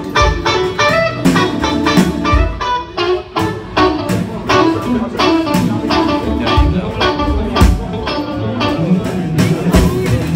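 Live blues band: a Stratocaster-style electric guitar playing a string of notes over a drum kit, with regular drum hits.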